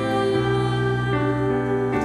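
Worship music of held, sustained chords over a bass line, the chord changing about a third of a second in and again just past the middle.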